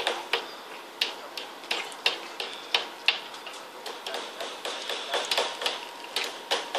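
Irregular sharp taps and clicks, about two a second, from fishermen handling their nets and gear on a moored small fishing boat.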